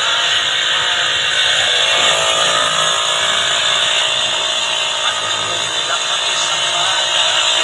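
Motorcycle engine running steadily as it drives a cable winch hauling a cart of vegetables.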